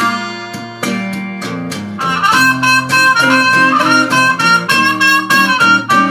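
Open-tuned acoustic guitar picking a blues figure, joined about two seconds in by a trumpet playing loud held notes that bend and slide.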